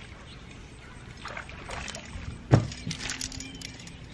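A small bass being reeled to the boat and lifted out of the water on a spinning rod. A single sharp knock about two and a half seconds in is the loudest sound, followed by a run of light clicks.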